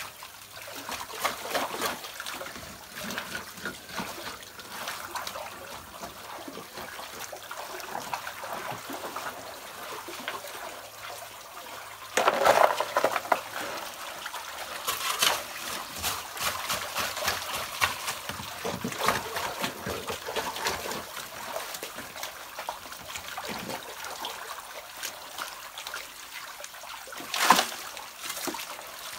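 Muddy water trickling and splashing while a hoe chops and scrapes through wet gravel and mud, with many small knocks and a few louder splashes.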